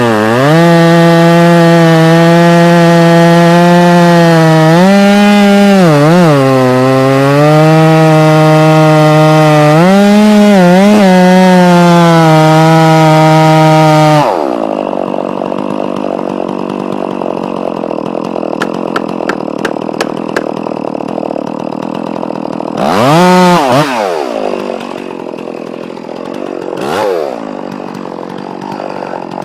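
Two-stroke chainsaw running flat out and cutting wood, its pitch dipping several times as the chain bogs under load. About halfway through it drops to a rough idle, is revved briefly twice, and opens up to full throttle again at the very end.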